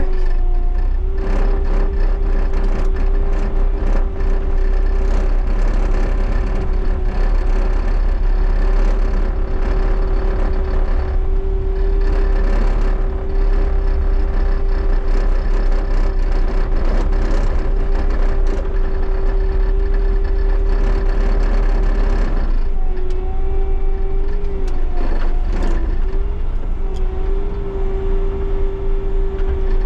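Bobcat T77 compact track loader running and driving, its diesel engine giving a steady low rumble under a continuous whine. About three quarters of the way through, the whine wavers and breaks for a few seconds, then steadies again.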